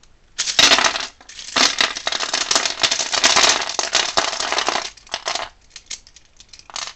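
The small plastic pieces of a 4x4 Rubik's cube clattering and scattering as the unscrewed cube is pulled apart and falls to pieces. A dense rattle of many small clicks starts about half a second in and dies away after about five seconds, with a few stray clicks after.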